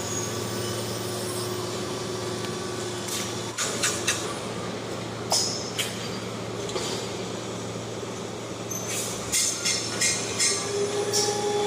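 Construction-site background: a steady low machine hum, with scattered sharp clicks and knocks that come thicker near the end.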